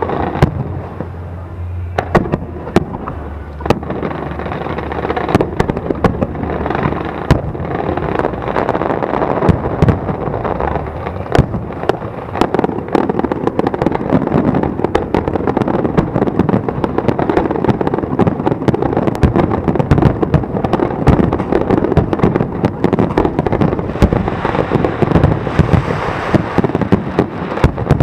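Aerial fireworks display: a rapid barrage of shell bursts and crackling that grows denser and louder as it goes on.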